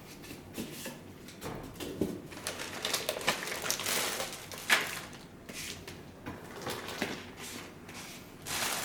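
Irregular rustling and small clicks from a wiring harness and its plastic packaging being handled and unwrapped.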